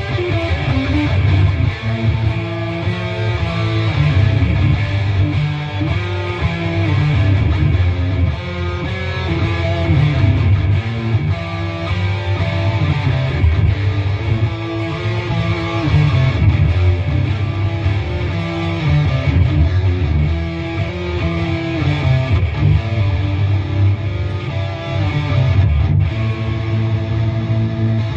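Live rock band playing amplified electric guitars over a heavy bass line, at a steady loud level.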